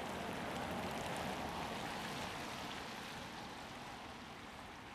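Tyre hiss on wet asphalt as a Nissan Altima Hybrid sedan rolls past slowly, a steady noise that fades gradually as the car moves away.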